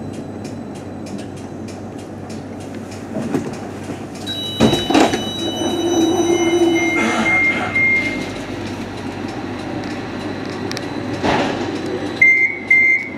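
Cab noise inside a CAF Urbos 3 tram, with fast ticking at the start. A clunk comes about four and a half seconds in, followed by high steady electronic tones and a short beep. Near the end a rapid pulsing beep starts.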